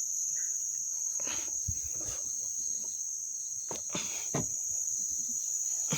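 Steady, high-pitched chorus of insects, with a few faint knocks or rustles.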